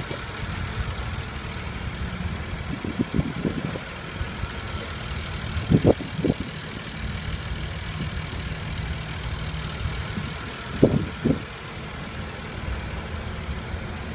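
New Holland 8340 pulling tractor's diesel engine idling steadily, with a few brief louder pulses, two pairs of them about six and eleven seconds in.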